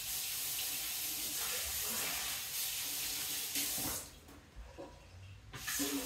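Water running from a kitchen tap as a steady hiss. It stops about four seconds in and starts again shortly before the end.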